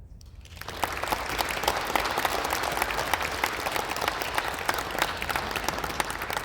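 Audience applauding at the end of a piece of music, the clapping swelling within the first second, holding steady, and dying away near the end.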